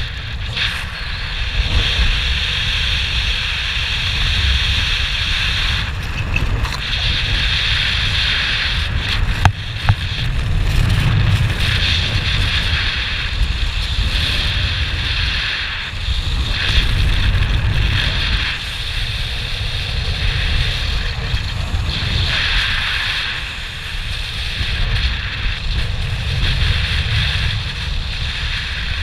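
Wind rushing over the camera microphone in paraglider flight: a steady rumble with a hissing layer that swells and fades every few seconds. A single sharp click about nine and a half seconds in.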